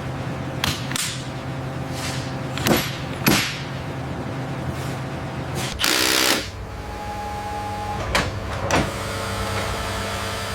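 Workshop tool sounds over a steady machinery hum: sharp metallic clanks and clicks at irregular moments, and a short noisy burst of about half a second around six seconds in.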